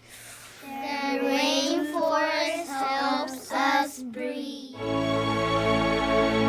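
A child's voice singing a few wavering, warbling phrases, without clear words. At about five seconds in, instrumental music with sustained chords begins.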